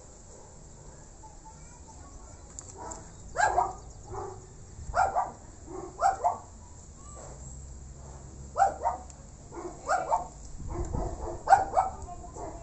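A dog barking: about a dozen short barks from about three seconds in, often two in quick succession.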